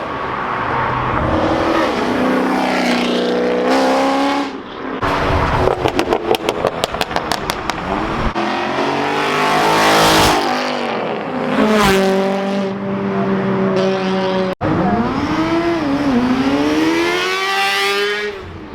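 Car engines revving and accelerating hard one after another, the pitch climbing and dropping through gear changes. A rapid stuttering pulse of about seven beats a second comes about six seconds in.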